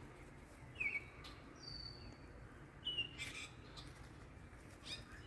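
Faint bird calls: a few short, scattered chirps, with a thin high whistle lasting about half a second around two seconds in.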